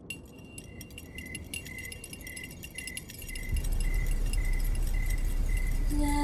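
Soundtrack ambience: faint high tinkling and a short high pip repeating about twice a second, joined a little past halfway by a deep rumbling drone that becomes the loudest sound.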